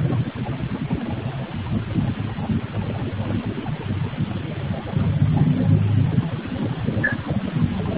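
Steady low rumble of machinery from a granite stone-working workshop, swelling a little around five seconds in. It is heard through a security camera's microphone and is the workshop noise being documented.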